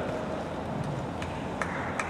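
Steady background ambience of an outdoor tennis stadium: an even hiss of crowd and open air, with a few faint ticks about half a second apart in the second half.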